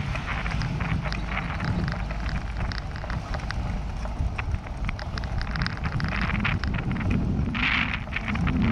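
Wind buffeting the microphone of a camera on a moving bicycle, with a steady stream of small clicks and rattles as the bike runs over brick paving. A hiss swells briefly near the end.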